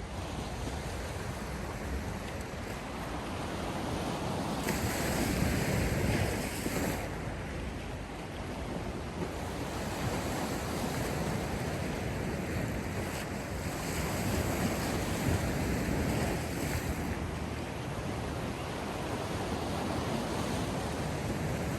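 Sea surf: waves breaking and washing in, swelling louder twice, with a hiss between the breaks.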